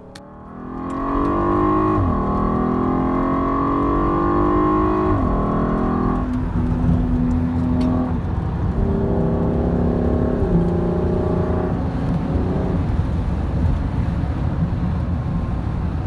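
Audi TT Mk2 heard from inside the cabin while accelerating: the engine note climbs, drops at gear changes about five and six seconds in, then runs on at speed under steady tyre and road noise. No wind whistle comes from the passenger-side frameless window, whose glass has just been raised, and the owner takes the whistle to be fixed.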